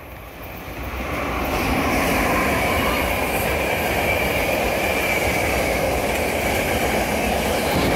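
SEPTA Regional Rail commuter train passing close by: the rumble and rail noise build over the first couple of seconds and then hold steady and loud, with a faint steady high tone above them.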